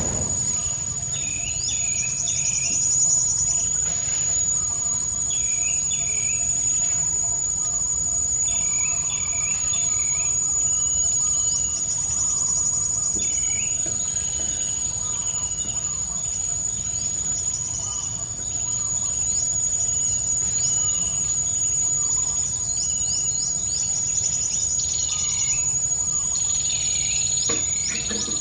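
A steady high-pitched insect drone, with birds chirping in short repeated phrases of quick rising and falling notes every second or two.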